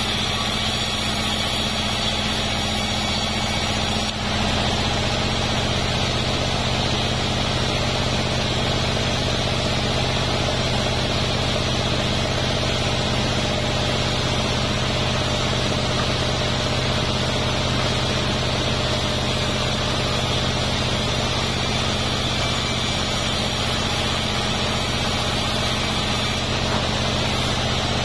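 Bandsaw mill running steadily while boards of durian wood are fed through its blade: a continuous machine hum with a steady rushing noise of the cut.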